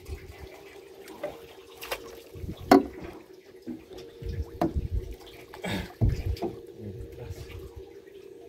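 Water sloshing and slapping against the side of a small boat, with a few sharp knocks and a faint steady hum underneath.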